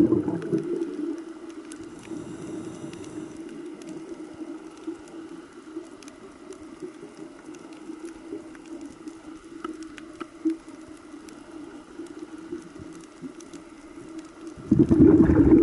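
Underwater sound over a coral reef: a steady low hum with faint scattered clicks. Near the end a loud rush of scuba exhaust bubbles sets in, a diver breathing out through the regulator.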